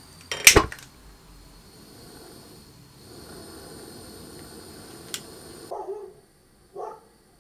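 Gas burner of a model steam boiler being lit with a lighter: a loud sudden pop of ignition about half a second in, then a steady hiss of the burner. Two short sharp sounds follow near the end.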